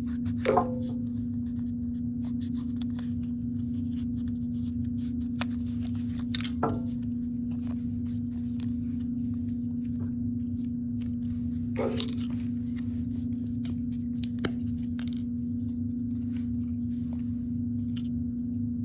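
Green craft foam being handled: soft clicks and rustles as cut shapes are pushed out of the foam sheet and set down on the table, with a few brief squeaky scrapes of foam, three of them louder than the rest. A steady low hum runs underneath.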